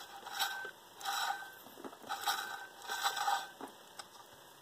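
Four short scraping rustles as a dark protective cover is worked off the compressor wheel of a BorgWarner EFR 9174 turbocharger.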